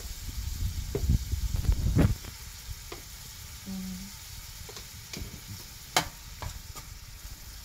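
Prawn curry sizzling in a frying pan as chilli powder is stirred in with a spatula. Low rumbling thuds come from the pan being handled in the first two seconds. The spatula then clicks and scrapes against the pan several times, sharpest about six seconds in.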